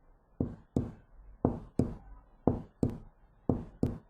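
Recording of normal heart sounds: a steady lub-dub, the first and second heart sounds coming in pairs, four beats about a second apart. Only two sounds per beat, the normal rhythm with no gallop.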